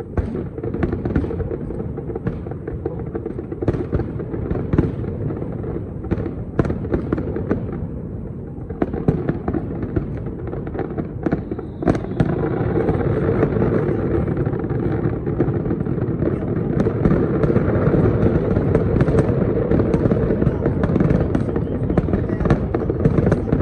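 Aerial fireworks shells bursting in quick, overlapping bangs over a steady rumble and crackle. About halfway through, the bursts merge into a denser, louder, continuous barrage.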